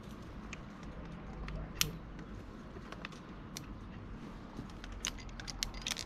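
Irregular sharp metallic clicks and clinks of climbing gear, carabiners and quickdraws knocking together, with one louder clack about two seconds in and a quick run of clicks near the end.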